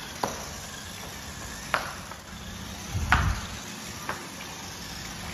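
A few sharp taps and knocks, roughly one every second or so, with a duller thump about three seconds in, over a steady background hiss.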